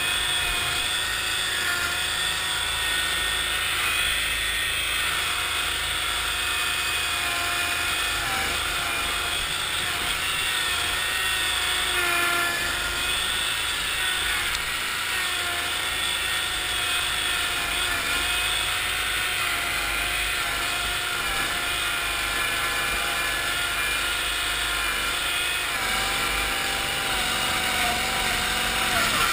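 The engine of a 1974 Cushman Trackster tracked vehicle running steadily as it drives, its pitch wavering slightly, heard close up from the driver's seat.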